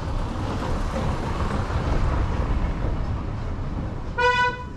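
A small car rolls past over stone paving, its tyres giving a rough, steady noise that swells as it passes. About four seconds in comes a short, single horn beep, the loudest sound here.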